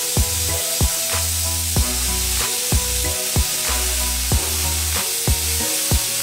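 Plasma cutter with a built-in compressor cutting thin steel plate at 40 amps: a steady hissing sizzle from the arc and air jet. Background music with a steady kick-drum beat and bass line plays over it.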